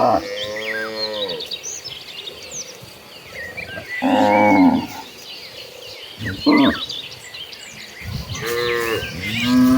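Cattle in a herd mooing: about four separate moos, one short and the others long and drawn out, the loudest about four seconds in. Birds chirp faintly in the background.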